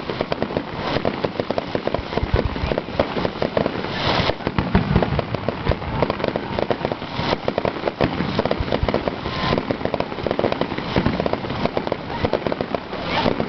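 Fireworks display: dense, rapid crackling and popping, with louder bursts about four, seven and nine seconds in.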